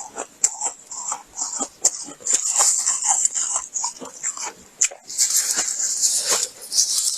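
Freezer frost being chewed close to the microphone: a fast string of crisp, squeaky crunches that thickens into continuous crunching for the last couple of seconds.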